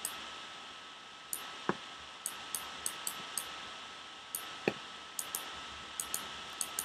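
Computer mouse and keyboard clicks, about fifteen irregular taps with two louder knocks, over a faint steady hiss and a thin high tone.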